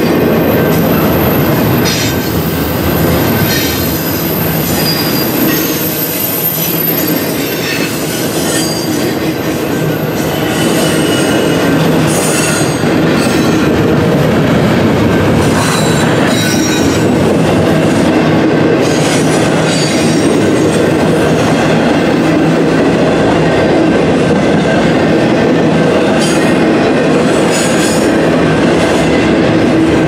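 Double-stack container well cars rolling past on a curve: steady loud steel-wheel rumble with clacks over the rail joints and short, high wheel squeals here and there.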